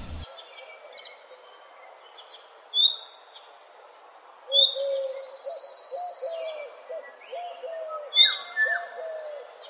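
Birdsong: scattered high chirps and whistles, joined about halfway through by a low hooting note repeated about twice a second.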